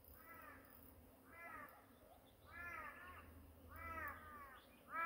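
A bird calling over and over: about five short calls that rise and then fall, a little over a second apart, growing louder toward the end.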